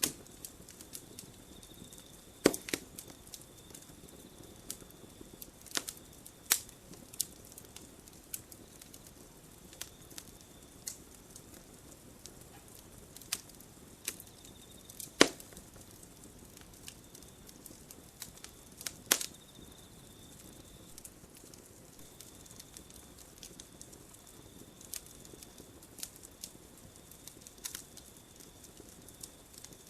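Campfire burning: wood crackling with irregular sharp snaps and pops, the loudest about halfway through. A steady high insect trill runs behind it and breaks off briefly about two-thirds of the way in.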